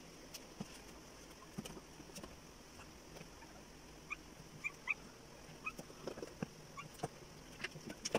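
Newborn Belgian Malinois puppies giving short, high squeaks, five or six of them starting about halfway through, among scattered soft knocks and rustles of the mother moving on cardboard.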